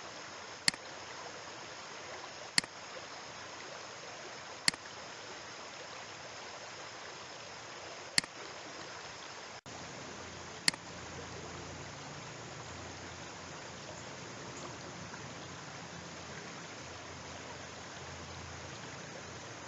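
Five sharp computer mouse clicks, spread irregularly over the first half, as dropdown menu items are selected, over a steady hiss that drops out for an instant a little before the last click.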